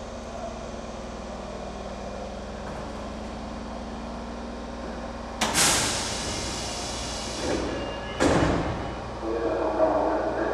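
Nagoya subway 2000 series train standing at the platform with a steady hum. About five and a half seconds in comes a sudden loud hiss of released air that fades over about two seconds. A second burst of air comes about eight seconds in as the sliding doors open.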